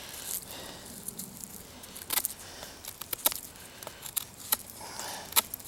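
Serrated section of a Victorinox Trekker's main blade cutting into hard wood, scraping and catching in irregular clicks.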